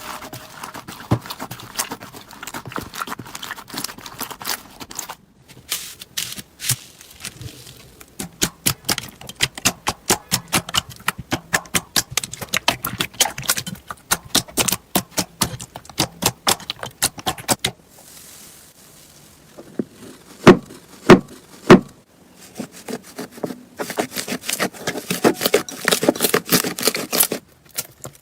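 Slime being worked by hand, squeezed and poked, making runs of quick sticky pops and crackling clicks, with three loud sharp pops a little past the middle.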